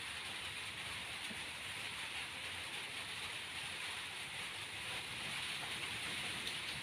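Steady outdoor background hiss, even throughout, with no distinct events.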